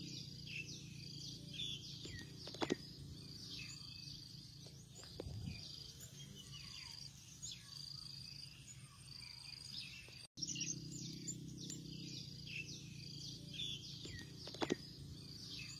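Faint tropical garden ambience: birds and insects calling, with repeated short high trills and quick falling chirps over a low steady hum. Two sharp clicks stand out, and the sound drops out for an instant about ten seconds in.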